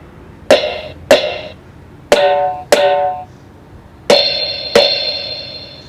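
Toy electronic keyboard's drum pads struck with a drumstick, each hit setting off an electronic drum sound from the toy's speaker. Six hits come in three pairs, a different drum sound for each pair; the last two ring on longer and brighter.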